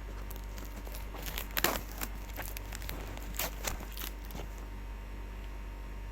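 Packaging being handled: crinkling, rustling and sharp clicks over the first four and a half seconds, the loudest about a second and a half in, over a steady low electrical hum.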